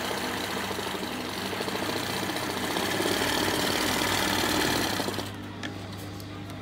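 Sewing machine running fast, its needle stitching rapidly through hooped cloth in freehand thread-painting embroidery. The stitching stops about five seconds in, leaving a low steady hum.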